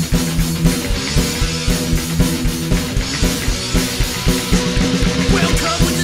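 Punk rock song played by a full band: drum kit keeping a fast steady beat under guitar and bass.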